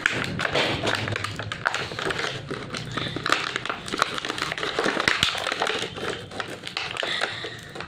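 Toy packaging being handled and worked open: a quick run of plastic taps, clicks and crinkling. The pack is hard to open.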